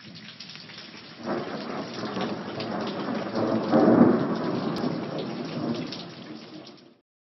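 Rain falling with rolling thunder: the rumble swells about a second in, is loudest around the middle, and fades away near the end.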